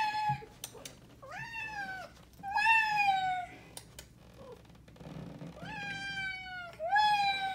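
Domestic cat meowing repeatedly: four drawn-out meows and one short one, each rising then falling in pitch.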